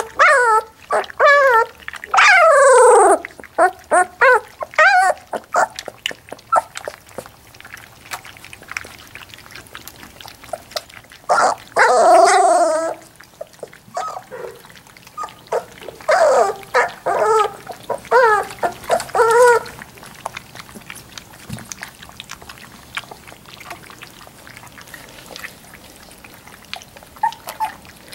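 Three-week-old Labrador Retriever puppies whining in short, high, wavering cries, in bouts at the start, around twelve seconds in and again from about sixteen to twenty seconds. Between and under the cries, wet lapping and slurping as the puppies feed from a shallow stainless-steel dish.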